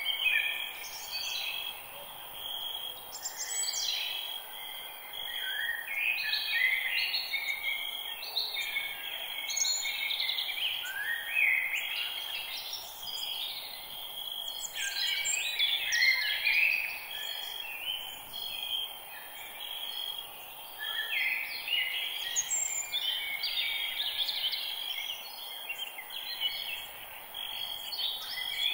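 Several birds singing and calling over one another in a dense, continuous chorus of short chirps and trills. Under it runs a steady even hiss of background noise.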